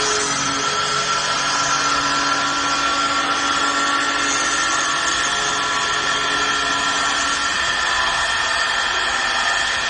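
Multi-head CNC wood lathe running and machining a wood workpiece: a steady mechanical whine from its motors over a hiss of cutting noise, the pitch shifting slightly about when it begins.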